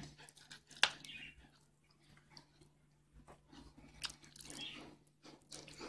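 Metal spoon packing moist rice stuffing into a hollowed zucchini: a few sharp clicks of the spoon against the plate and the zucchini, the loudest about a second in, with soft wet rustles of the rice, over a low steady hum.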